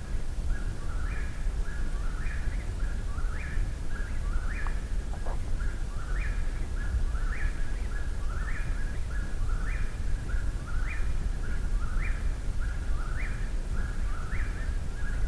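Eastern whip-poor-will singing close by, repeating its three-note "whip-poor-will" phrase about once every 1.2 seconds, over a steady low rumble.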